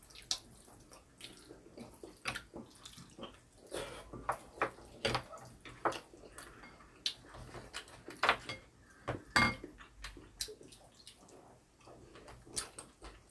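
Eating sounds: chopsticks and a wooden spoon clicking and scraping against ceramic bowls, with short wet slurps of jjajangmyeon noodles, coming at irregular moments.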